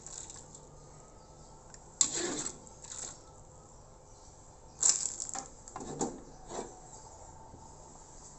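Metal slotted ladle scraping and clinking against an aluminium wok as the last noodles are scooped out of the broth, in a few sharp scrapes about two, five and six seconds in.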